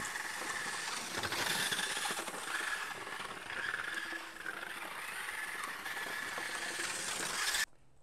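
Small combat robot's geared brushless drive motors whining as it is driven about, the pitch rising and falling with the throttle, over the hiss of its wheels rolling on asphalt. The sound cuts off suddenly near the end.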